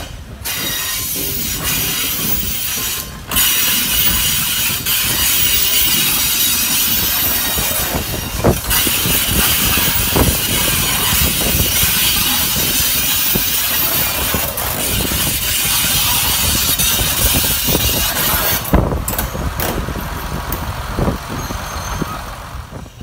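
Two coupled ALn 668 diesel railcars arriving and rolling past at low speed: engines running, wheels rumbling on the rails, with a few sharp knocks from the wheels over rail joints.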